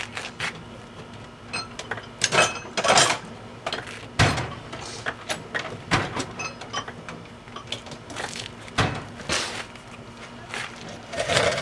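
Metal hand tools, sockets and wrenches, clinking and knocking irregularly against each other and the wheel hub, with several sharper clanks.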